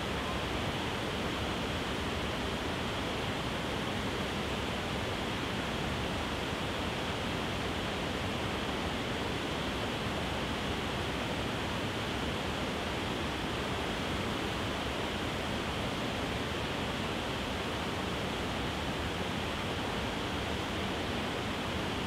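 Wide, low waterfall cascading over several rock ledges: a steady, even rush of falling water.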